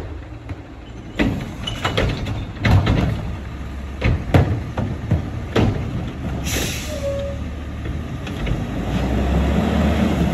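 Front-loading garbage truck with an automated carry can emptying a wheeled trash cart: a run of loud knocks and bangs as the cart is lifted and shaken out over the engine's steady running. A short air hiss comes about six seconds in, then the engine revs up near the end.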